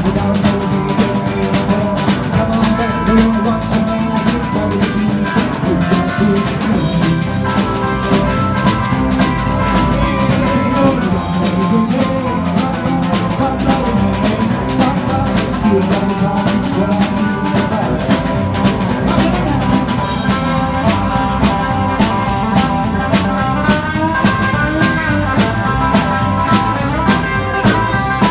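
Live rock band playing: electric guitars over a drum kit keeping a steady, driving beat.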